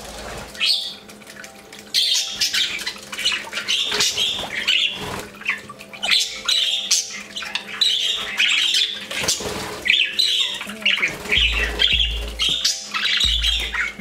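A group of budgerigars chattering, with many quick chirps and squawks overlapping.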